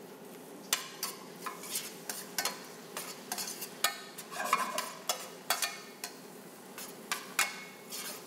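Metal tongs clicking and scraping against a stainless steel sauté pan in irregular strokes, about one or two a second, as spinach is tossed, over a steady sizzle of spinach wilting in olive oil and garlic.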